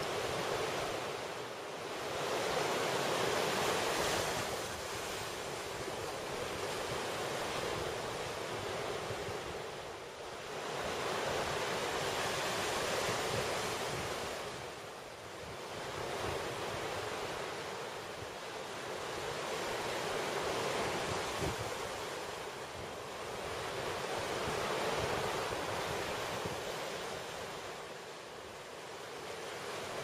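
Sea surf: a steady rushing that swells and eases every five to eight seconds.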